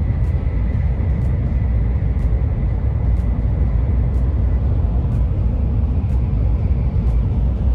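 Steady loud rumble of a Shinkansen bullet train running, with faint ticks about once a second.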